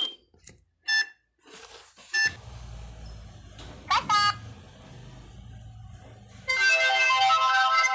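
Electronic sounds from a children's interactive talking study book as its stylus pen touches the pages and buttons: short bleeps and chirps, then near the end a busy electronic tune starts playing from its small speaker.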